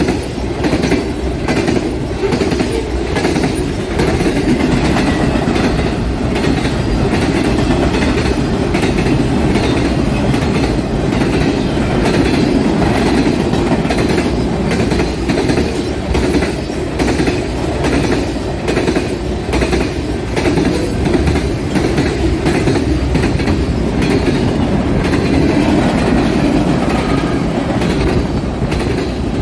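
Mixed freight train of tank cars and covered hoppers rolling past at speed: a steady, loud rumble of steel wheels on rail, with repeated clickety-clack as the wheels cross rail joints.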